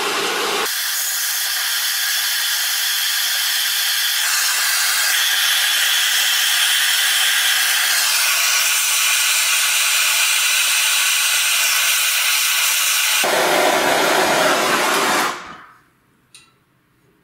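Bernzomatic TS4000 trigger-start torch burning with a steady hiss while a copper pipe joint is heated and soldered. The hiss grows deeper for its last couple of seconds, then cuts off about fifteen seconds in as the torch is shut off, followed by a few faint clicks.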